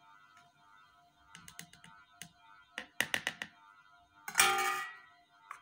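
Light clicks of a spoon tapping against a small food-colour jar and a plastic bowl: a few scattered taps, then a quick run of them, under faint background music. A short, louder rasping sound comes near the end.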